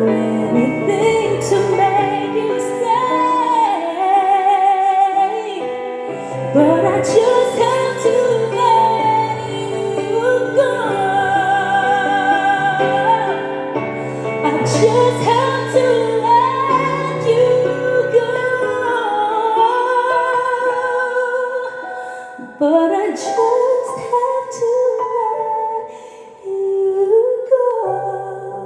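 A woman singing an R&B ballad live, with wide vibrato on held notes, over instrumental accompaniment with steady bass notes.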